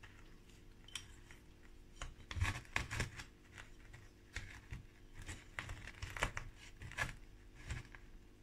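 Dragon stone (Ohko rock) pieces being pushed and shifted by hand in dry sand: irregular gritty scraping and crunching of rock in sand, with sharp clicks of stone knocking on stone, in two flurries, one about two seconds in and a longer one from about four and a half seconds on.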